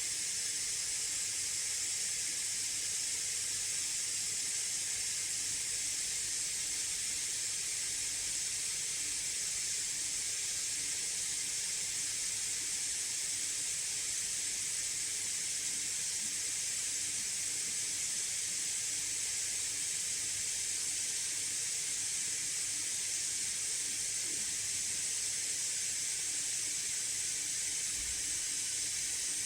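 MSI Raider GE78HX gaming laptop's cooling fans running at high speed under full benchmark load: a steady, high-pitched hiss, with no coil whine.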